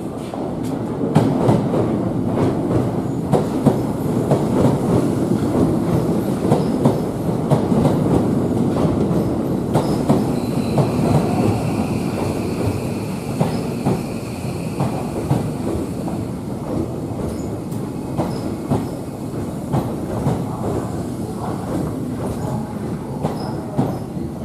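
Tokyo Metro 13000-series electric train running in slowly over the points. Its wheels click over the rail joints and switch blades above a steady rumble, and a faint high whine holds for several seconds about ten seconds in as it comes to a stop.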